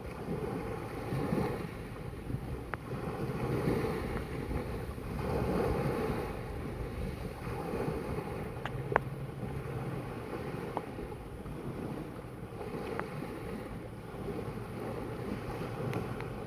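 Sea waves washing, rising and falling every couple of seconds, with wind buffeting the microphone and a few short, sharp ticks.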